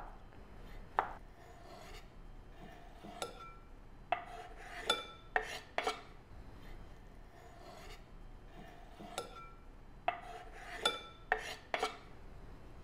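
Diced avocado being added to a ceramic salad bowl: soft rasping and scattered light clicks, with a few clinks that ring briefly, about five seconds in and again near the end.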